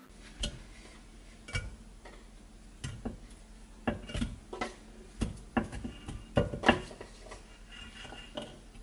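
Chunks of onion and carrot and raw chicken pieces being set by hand into a ceramic-coated cooking pot: about a dozen irregular short knocks and clunks against the pot.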